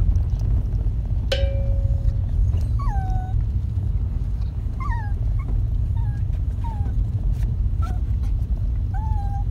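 Pet dog whining repeatedly in short, falling whimpers inside a moving Subaru BRZ, over the car's steady low engine and road rumble; the dog is anxious.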